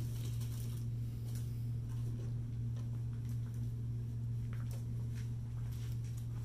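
Steady low hum of room tone, with a few faint light ticks scattered through it.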